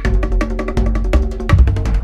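Background music with a quick, steady percussion beat over a bass line and short repeating pitched notes.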